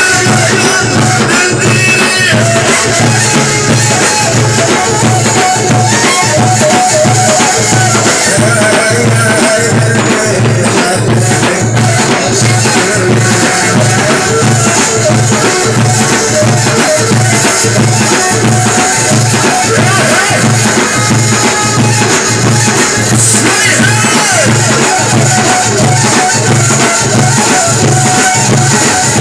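Loud live folk music from a drum troupe: large double-headed tabl drums beaten with sticks in a steady heavy beat of about one and a half strokes a second, with a wavering melody above and rattling percussion.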